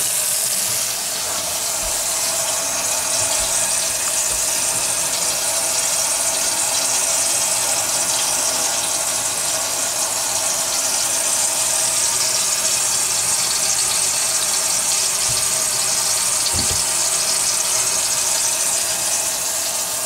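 Kitchen faucet running steadily into a stainless sink and down the drain of a newly installed garbage disposal, under a faint steady hum; this is a leak test of the new unit's connections.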